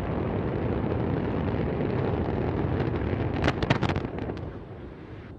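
Antares rocket's launch noise, a steady low rumble, with a cluster of sharp cracks about three and a half seconds in; the sound then dies down.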